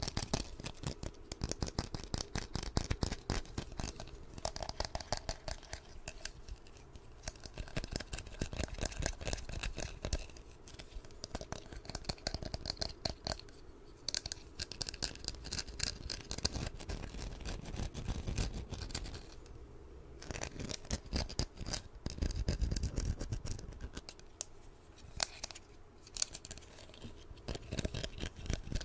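Fingernails scratching and tapping quickly on a small, hard, black handheld object held right up to the microphone. The strokes come in fast runs broken by a few short pauses.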